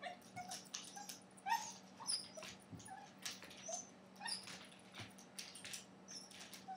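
Dachshund puppy whimpering in short, faint, high cries, with light clicks and scratches in between.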